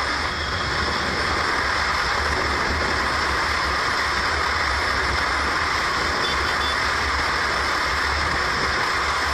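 Steady rush of wind and road noise picked up by a motorcycle's onboard camera at highway speed, with a low rumble underneath.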